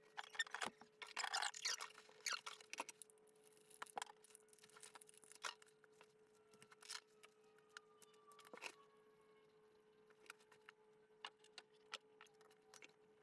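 Faint scattered clicks and taps of parts and tools being handled at a shower valve, over a faint steady hum.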